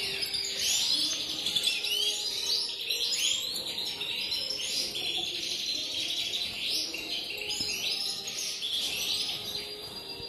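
A flock of caged European goldfinches chirping and twittering together: many short, high calls overlapping in a dense, unbroken chatter.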